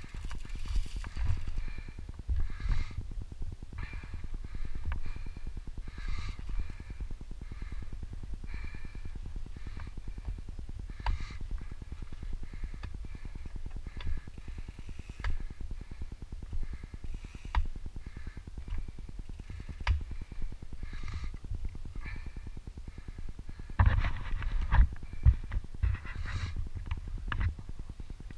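Mountain bike ridden down a rough dirt singletrack: a steady low rumble of tyres on the trail with the chain and frame rattling and sharp knocks over bumps, the hardest run of knocks near the end.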